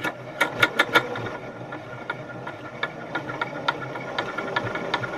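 Janome Memory Craft 5900QC sewing machine running and stitching through fabric, a steady motor hum under repeated sharp knocks and rattles, thickest in the first second. The knocking is the bobbin case rattling around, which the sewer takes for a bobbin case not seated properly.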